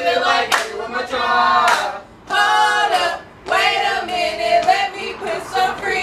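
A group of young women and men singing a cheer together in short phrases with brief pauses between them, with a few sharp hand claps.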